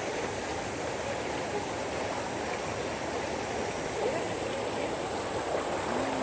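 Flowing water of a stream running steadily, an even rushing sound, with a thin, steady high-pitched hiss above it.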